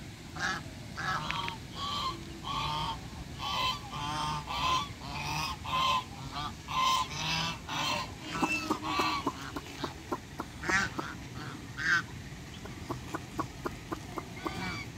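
Several domestic geese honking, short calls repeated rapidly one after another, thinning out to a few scattered honks after about ten seconds.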